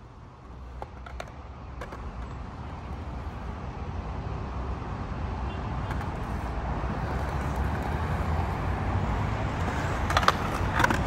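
Skateboard wheels rolling on smooth concrete, a low rumble that grows steadily louder as the board comes closer. A few sharp clacks of the board near the end.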